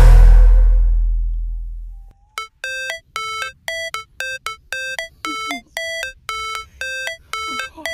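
Background music: a bass-heavy electronic track fades out over the first two seconds, then a run of short, bell-like pitched notes repeats at about two and a half a second.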